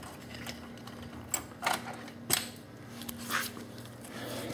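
A few light, separate clicks and knocks of small hard objects being handled, over a faint steady hum.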